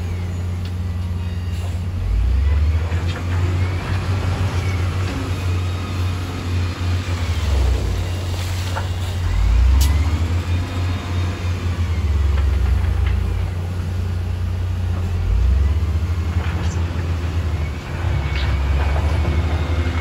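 Heavy diesel engine of a wheel loader running under load as it pushes stone into the water, revving up and back down a few times with a rising-and-falling whine, over the engine of a dump truck drawing up behind it. A few sharp knocks stand out.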